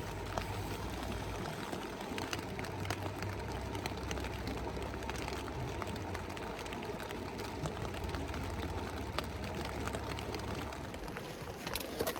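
Wood campfire crackling: a steady hiss broken by scattered sharp pops and snaps.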